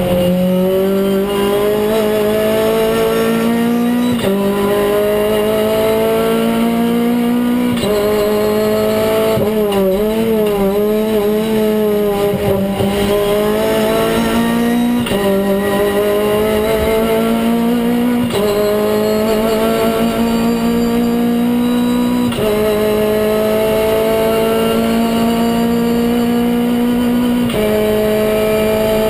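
Renault Clio Cup race car's four-cylinder engine under hard acceleration, heard from inside the cockpit. Its pitch climbs steadily and drops sharply at each of about six upshifts, with a wavering stretch about a third of the way in as the throttle is worked through a corner.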